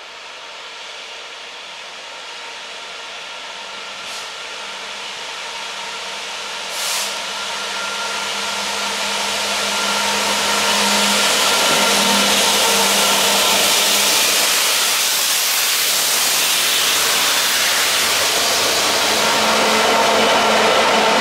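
Class 66 diesel-electric freight locomotive approaching and passing close, its two-stroke V12 diesel engine running under power. The sound grows steadily louder for about ten seconds, then stays loud as the locomotive draws level.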